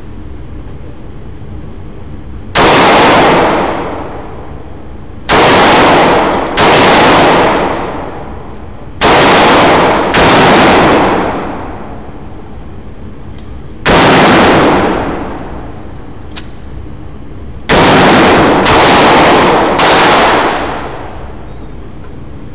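.45 ACP 1911 pistol (ATI FX45 Titan) firing nine shots, singly and in quick pairs and triples, each shot ringing out for more than a second.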